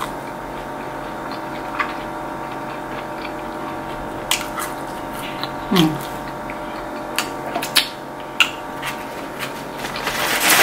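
Close-up chewing of a fried cheesecake bite: scattered wet mouth clicks and smacks over a steady background hum, with a short low hum from the voice about six seconds in.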